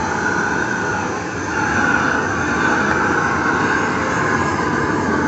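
A loud, steady mechanical noise: a wavering hum over a rushing haze, with no breaks.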